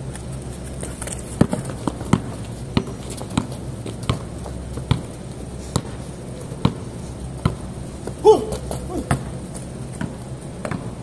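A basketball dribbled on a concrete court: sharp bounces about every three quarters of a second, over a steady low hum. A brief squeal about eight seconds in is the loudest sound.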